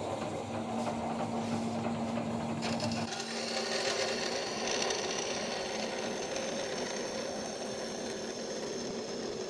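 1957 DoAll 16-inch bandsaw running steadily with its blade cutting a curve through 6 mm mild steel plate, a continuous metal-cutting rasp over the machine's running noise. The repaired gearbox stays in gear.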